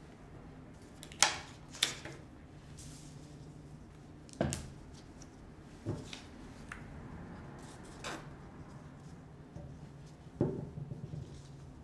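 Craft handling noises on a paper-covered table: a handful of sharp taps and knocks, spaced a second or more apart, with some paper rustling, as paper shapes, pipe cleaners and a glue bottle are picked up and put down.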